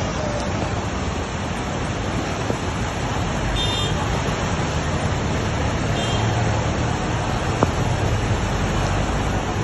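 Steady roar of a muddy flash-flood torrent rushing past, with a single sharp click about seven and a half seconds in.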